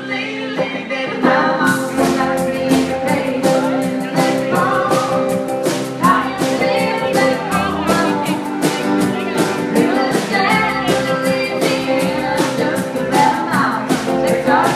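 Live band playing: a female lead vocal over strummed acoustic guitar, with a drum kit coming in about two seconds in and keeping a steady beat.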